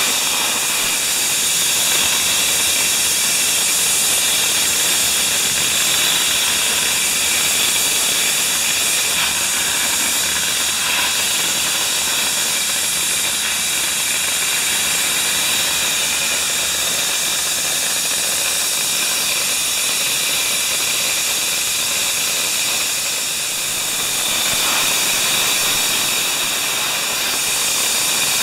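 Dry-ice blasting gun spraying with a loud, steady hiss of compressed air, blasting weld spatter off a welding-station fixture.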